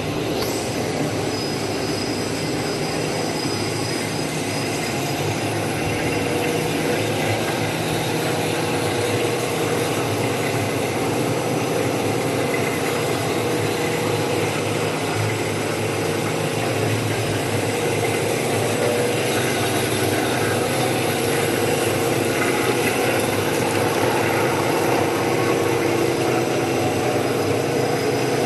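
Model WT-65/90/65X1850 three-layer cast stretch film extrusion line running in production: a steady mechanical din of motors and rollers with a faint steady hum, while film winds onto the rolls.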